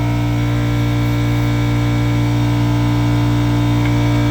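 Air compressor running, a steady unbroken motor hum.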